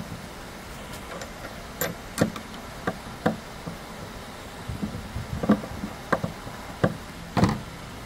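Hand screwdriver turning screws into a small metal hook-and-eye latch: about ten irregular sharp clicks and knocks of the screwdriver and metal hardware, the last a little before the end.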